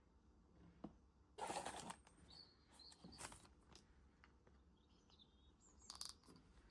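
Faint handling of blind-box packaging: a brief rustle about a second and a half in, a few small clicks and another short rustle near the end, with a couple of faint chirps in the background.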